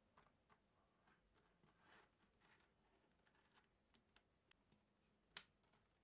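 Faint, irregular clicking of tiny neodymium magnet balls snapping together as a strand of them is pressed onto the edge of a magnet-ball structure, with one sharper click near the end.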